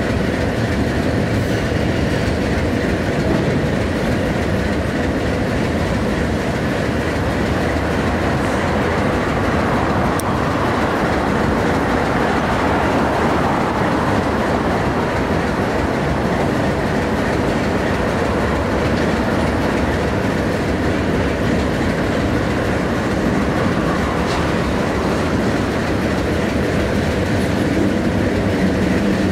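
Freight train cars rolling past at close range: a steady, unbroken rumble of steel wheels on the rails.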